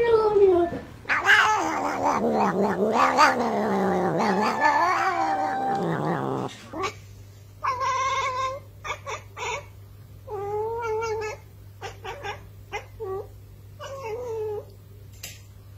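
An orange-and-white cat gives a weird, long, wavering yowl that rises and falls in pitch. After a break, a tabby cat makes short chirping calls in three or four bursts, with clicks between them.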